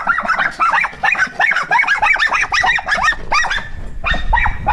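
Dog yipping and whining in quick, excited high-pitched yelps, several a second, with a short lull near the end.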